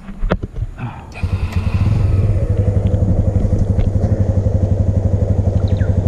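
Motorcycle engine, a few clicks, then about a second in the engine opens up as the bike pulls away and runs on steadily with a rapid, even pulsing.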